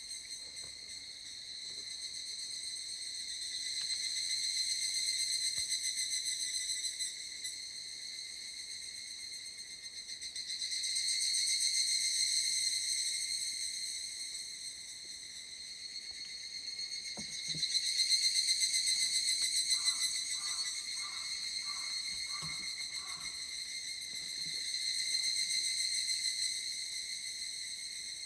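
Chorus of higurashi (evening cicadas, Tanna japonensis) calling, a high ringing trill that swells and fades in overlapping waves every several seconds.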